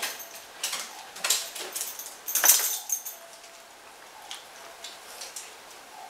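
A quick run of light clicks and clinks during the first three seconds, the loudest about two and a half seconds in, then only quiet room tone.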